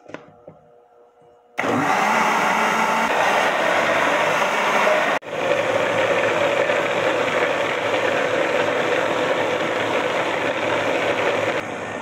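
Electric countertop blender running steadily as it mixes flour into a liquid bread batter, starting about a second and a half in. It cuts out for an instant about five seconds in, then runs on and stops just before the end.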